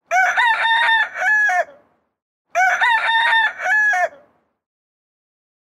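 A rooster crowing twice, the same cock-a-doodle-doo heard two times in a row, each crow lasting just under two seconds.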